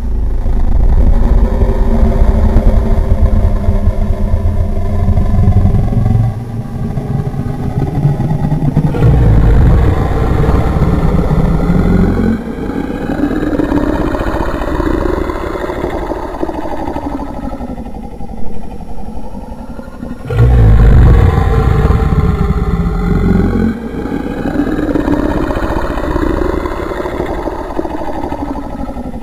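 A person's voice imitating a big engine: rumbling and revving noises that rise and fall in pitch, louder and deeper in two stretches.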